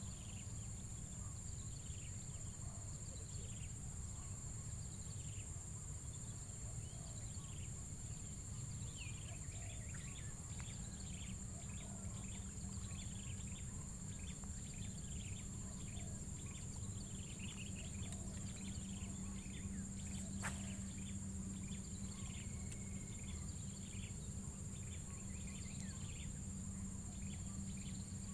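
Steady high-pitched insect drone with many short bird chirps scattered through it, over a low steady rumble. One sharp click comes about twenty seconds in.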